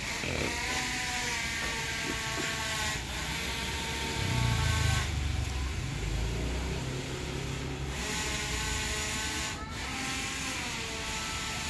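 Street traffic: a vehicle's low rumble swells and is loudest from about four to eight seconds in. A pitched drone holds and breaks off several times over it.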